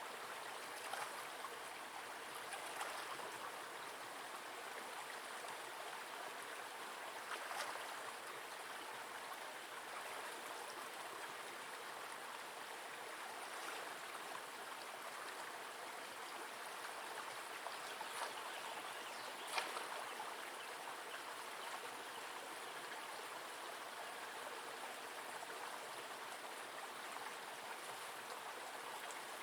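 Steady rush of flowing water from a small forest stream, with a few brief faint sharp sounds over it, the most distinct about two-thirds of the way in.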